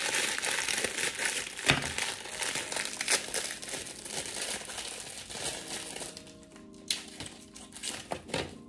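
Plastic fortune-cookie wrapper being crinkled and torn open, with a few sharp crackles, dying away after about six seconds. Soft background music comes through near the end.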